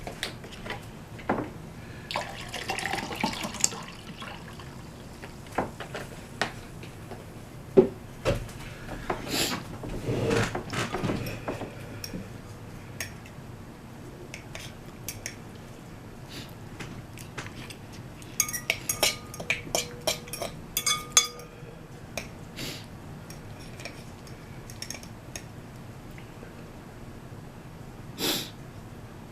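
Eating from a bowl of ramen: a utensil clinking and scraping against the bowl, with wet liquid noises from the noodles and broth. About two-thirds through comes a quick run of clicks.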